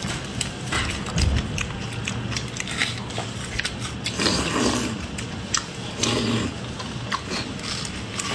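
Close-miked eating: wet chewing and lip-smacking clicks throughout, with two longer slurping sounds about four and six seconds in.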